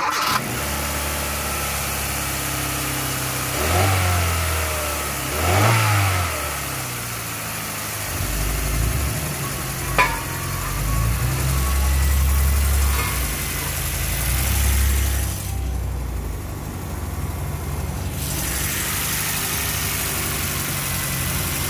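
2011 Hyundai Accent's four-cylinder petrol engine catching and settling to a steady idle, then revved twice briefly, about four and six seconds in, before idling on.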